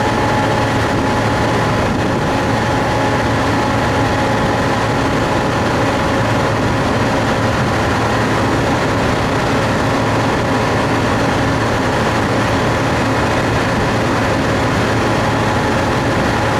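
Combine harvester running steadily under load while harvesting lima beans: an even, unbroken machine drone with a constant whine on top.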